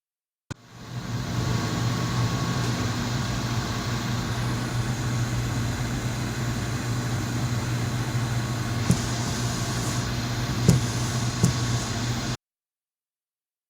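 Steady low mechanical hum of running machinery, with a few light clicks near the end. It starts suddenly and cuts off abruptly.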